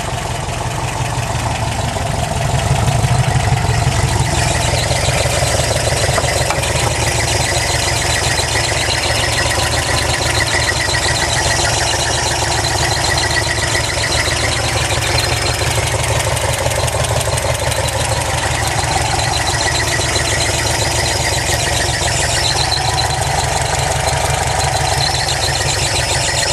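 Engine running steadily with some unfamiliar noises, which the owner noticed after it sat unused for a few weeks; it gets slightly louder about three seconds in.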